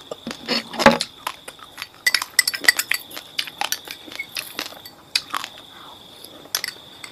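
Raw, fridge-chilled basmati rice being crunched and chewed as a run of many sharp clicks, with light clinks of a utensil or container.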